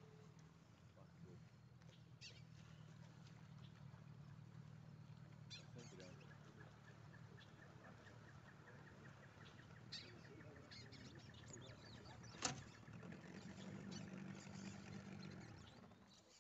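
Near silence: faint steady low hum of quiet riverside ambience, with a few faint clicks and one sharper click about twelve seconds in.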